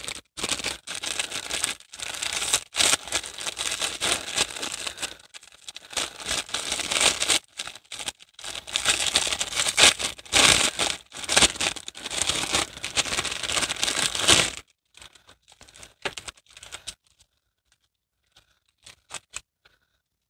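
Clear plastic packaging crinkling as it is handled and pulled open by hand, in dense, uneven bursts. The crinkling stops about three-quarters of the way through, leaving only a few faint rustles.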